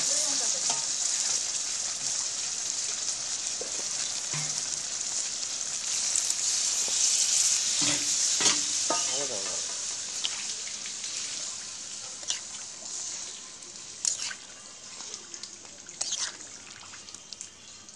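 Mutton curry sizzling in hot oil in an aluminium kadai. Water is poured in from a pot partway through and the sizzle gradually dies down. A few sharp clinks near the end.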